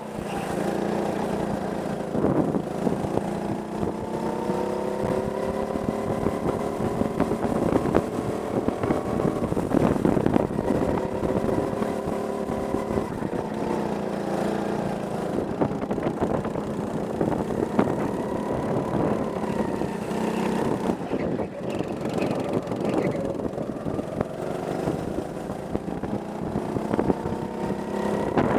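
Go-kart engine heard from on board, its pitch rising repeatedly as the kart accelerates and dropping as it slows for the corners.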